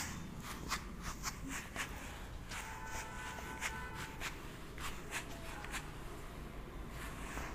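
Whiteboard eraser wiping marker writing off a whiteboard: a run of short, irregular rubbing strokes, one to three a second.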